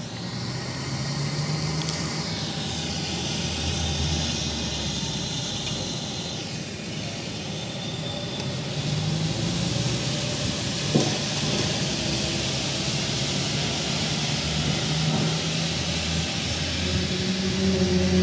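A steady low rumbling drone under a hiss, with faint low tones that swell and fade, and a single sharp click about eleven seconds in. It is presented as an unexplained 'strange sound' of unknown source.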